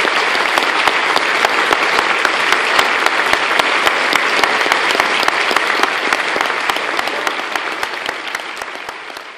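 Audience applauding, a dense steady clatter of many hands clapping, fading out near the end.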